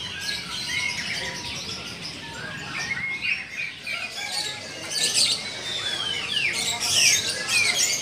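Many caged songbirds chirping and singing at once, a dense overlapping chorus of chirps and whistles, with sharp falling whistles standing out more loudly in the second half.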